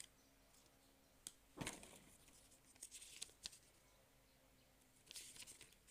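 Faint rustling and crinkling of paper leaflets being handled, in a few short bursts with light clicks.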